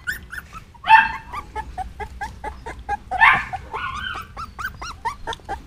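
Young dachshund puppies squeaking and whimpering as they are handled: a quick run of short high squeaks, several a second, with two louder squeals about a second in and about three seconds in.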